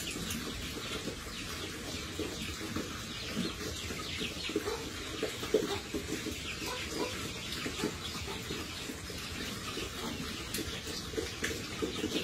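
A group of pigs feeding together: a constant jumble of chewing and slurping with short grunts mixed in.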